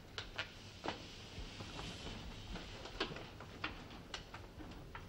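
Faint, irregular footsteps and knocks on bare wooden floorboards, with the creak of a wooden chair, as a man crosses the room and sits down. About eight scattered clicks over quiet room noise.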